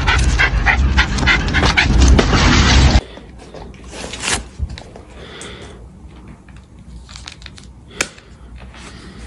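A small black dog panting rapidly and loudly, with about four quick breaths a second. About three seconds in it cuts to much quieter sounds, with one sharp click near the end.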